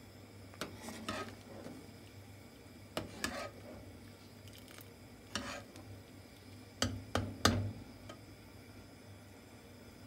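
Metal spoon stirring a pot of noodle soup, clinking and scraping against the pot in four short bouts, the loudest about seven seconds in, over a steady low hum.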